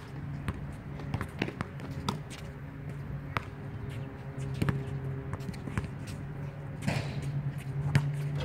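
Basketball bouncing on an outdoor hard court as a player dribbles, a series of irregularly spaced thuds, over a steady low hum.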